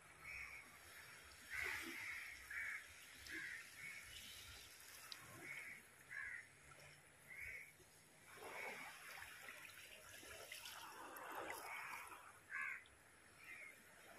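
Crows cawing, a string of short calls a little under a second apart, over faint surf washing on the shore, which swells for a few seconds past the middle.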